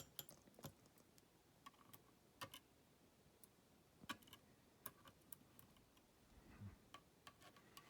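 Faint, scattered light clicks of small metal lock pins and tools being handled and set down, about a dozen irregular ticks.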